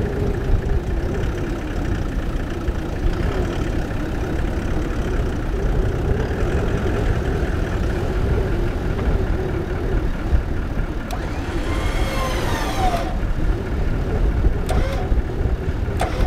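A 4WD's engine idling steadily, with wind rumbling on the microphone. About two thirds in, a brief wavering whistle rises and falls, and there are a few sharp ticks.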